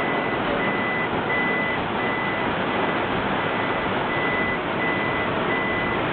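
Heavy tropical rain drumming steadily on a car's roof and windscreen, heard from inside the car. A high single-pitch electronic beeper sounds through it in short, evenly spaced beeps about one and a half times a second, stopping for over a second midway.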